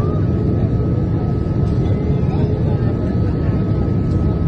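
Steady cabin noise inside a Boeing 787-9 airliner in flight: engine and airflow noise heard from a window seat, heavy and low, with a thin steady whine above it.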